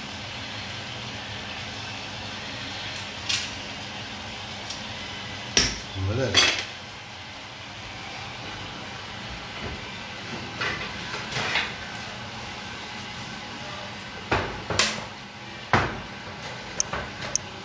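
Irregular clinks and knocks of metal against a stainless steel stockpot, about a dozen sharp strikes spread unevenly, the loudest clustered twice, over a steady background hiss.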